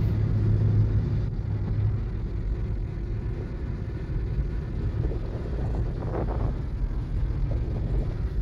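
Steady road and engine rumble inside a car's cabin while driving, with wind noise; a low hum is strongest in the first couple of seconds.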